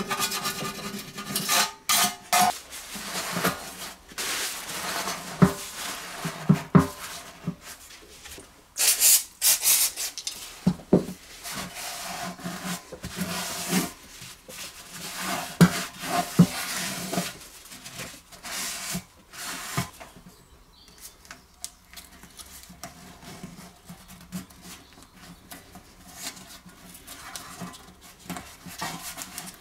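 A hand tool scrapes paint and rust off a steel generator fuel tank, in irregular rasping strokes with light metallic knocks. In the last third it turns to softer rustling and handling as paper towel is stuffed into the filler neck and masking tape is pressed over it.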